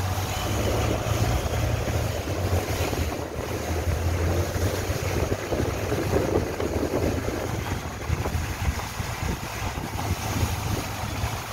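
Engine of a small wooden river boat running under way with a steady low drone, under heavy wind noise on the microphone and the rush of water along the hull.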